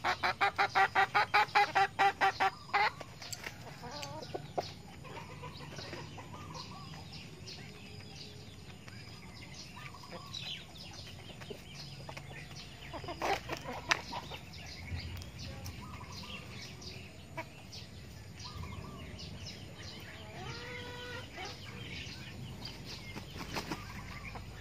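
Chickens clucking. A loud, fast run of clucks in the first three seconds, then soft, scattered clucks with a few sharp clicks about halfway, and a short call a few seconds before the end.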